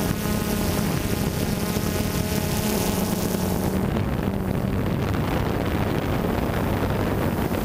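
Steady buzzing hum of a multirotor drone's motors and propellers, picked up by the camera on board.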